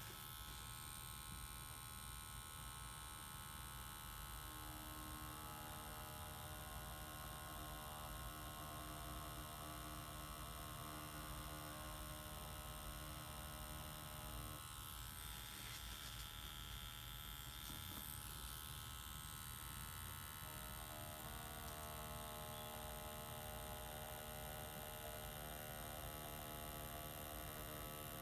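Cartridge tattoo machine with a three-round liner needle running with a steady electric buzz while lining a stencil, its tone shifting for a few seconds about halfway through.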